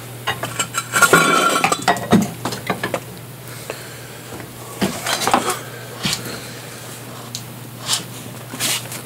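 Metal clinks and clanks of a wrench being worked on a car wheel's lug nuts: a busy clatter about a second in, then scattered single clinks.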